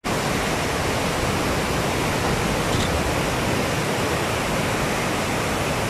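Turbulent floodwater rushing and churning out below a barrage's spillway, a steady rushing with no break.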